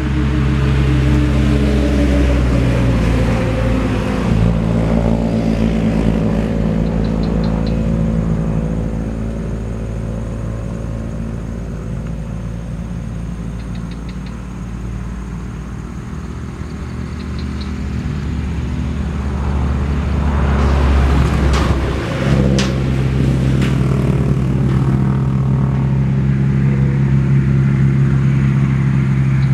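Road traffic: motor vehicle engines running with a steady drone, the pitch falling about three seconds in as one vehicle goes by, easing off midway, then another engine drone building and holding from about twenty seconds in, with a single knock just after it swells.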